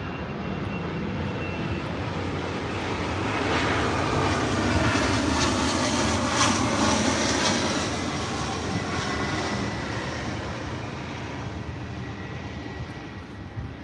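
A passing vehicle's rushing noise that swells to a peak about six seconds in and then fades away.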